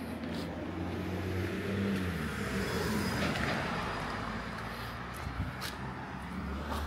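A car passing by on the street. Its engine and tyre noise swell to a peak about three seconds in and then fade away.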